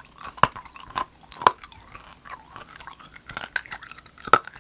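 Close-miked chewing and crunching of a hard candy, with sharp crunches at about half a second, one second and a second and a half in, and two more near the end.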